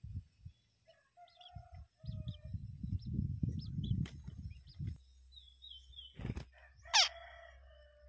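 Long-tailed shrike nestlings in the nest with a parent coming in to feed them: soft rustles and thuds close by, with thin high chirps and short calls. There is a brief flutter just after six seconds. About seven seconds in comes a loud harsh call that slides steeply down in pitch and trails off over about a second.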